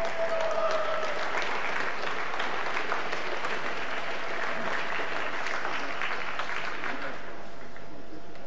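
Arena crowd applauding as an ice dance couple is introduced, the clapping dying away near the end.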